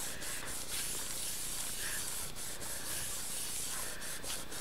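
Hands rubbing and pressing over a sheet of cardstock, a steady dry paper rustle with a few light strokes, as the card is smoothed down onto a stencil wet with paste to take a print.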